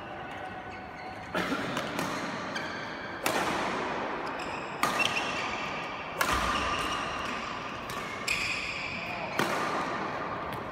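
Badminton rackets striking a shuttlecock in a rally, about six sharp hits one to two seconds apart. Each hit echoes in the large hall.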